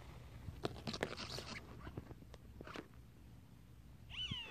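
Faint rustling and clicks of a line being hauled in by hand over an inflatable boat's side, busiest in the first second or so. Near the end comes a short animal call with falling pitch.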